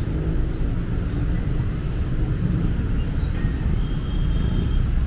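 Steady low rumble of outdoor background noise, with no clear single event.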